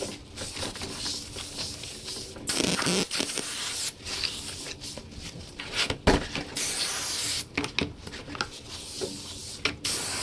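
Aerosol brake cleaner hissing in several bursts onto a new brake rotor, stripping off the rotor's protective oil coating, with a single knock about six seconds in.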